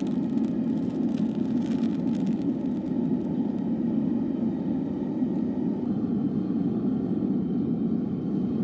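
Propane-fired keg furnace running steadily, its burner giving a constant low roar while it holds a crucible of molten copper. A few faint crackles sound in the first couple of seconds.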